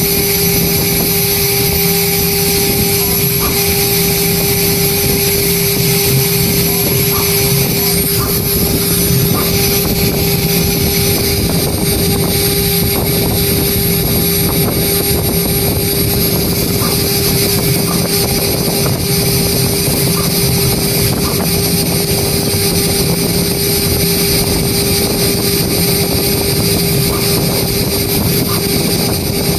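CNC engraving machine spindle running steadily, its fine engraving bit cutting into an aluminium composite panel (ACP): a constant tone over a steady hiss.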